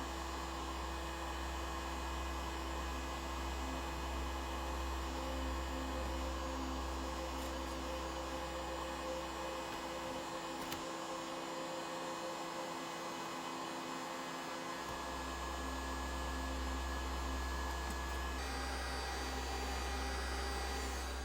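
Heat gun blowing steadily, a continuous whirring hum, used to soften the adhesive tape under a Surface Book's keyboard battery. Its deepest part drops away for a few seconds in the middle.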